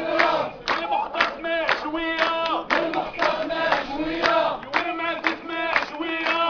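Crowd of men chanting in unison, with rhythmic hand clapping at about two claps a second.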